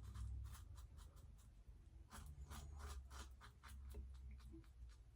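Ikon X3 slant safety razor scraping through lathered whiskers in a quick run of short strokes, faint crisp rasps several a second; the blade is still cutting well.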